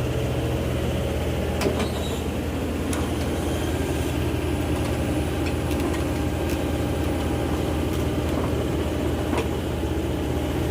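Heavy diesel engine of an excavator or truck running steadily, with a few faint sharp clicks or knocks.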